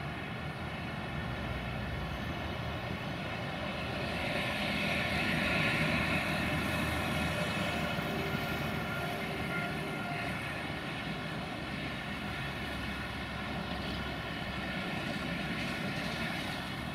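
LDE2100 (060-DA) diesel-electric locomotive's Sulzer diesel engine running as it approaches hauling a freight train, a steady drone that swells about four seconds in and eases slightly later.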